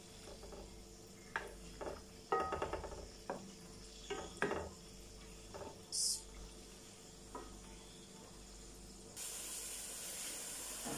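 Cooking spoon knocking and scraping in a non-stick frying pan as half-cooked chicken koftas are turned in shallow oil, with a light sizzle and a brief hiss about six seconds in. From about nine seconds in, a steady frying sizzle.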